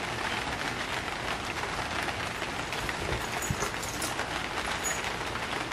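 Steady rain pattering: an even hiss made of many small drop ticks, unchanging throughout.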